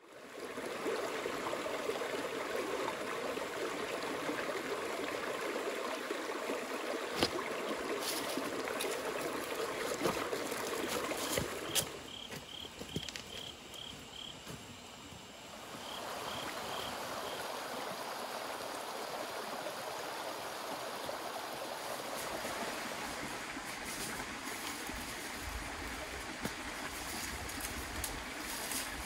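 Creek water running over rocks, a steady rushing that drops off for a few seconds partway through. Scattered sharp clicks and a quick series of high, evenly spaced peeps cut in around the middle.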